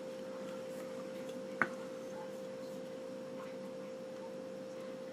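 Quiet room tone with a steady faint hum and one short click about a second and a half in.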